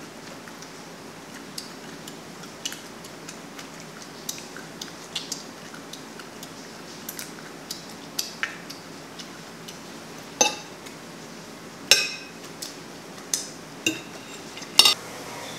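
Eating at a table: small clicks throughout, then several louder clinks of cutlery against a dish in the second half, two of them ringing briefly.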